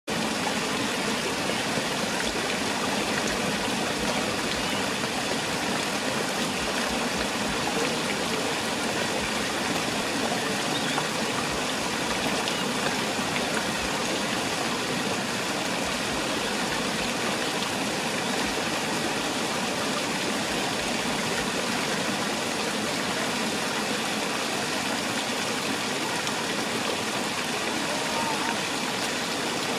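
Water from a large marble fountain splashing steadily, an even, unbroken rush.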